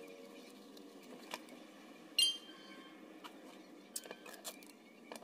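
Scissors snipping and handling foil-lined cardboard, heard as scattered light clicks and rustles, with one short ringing clink about two seconds in.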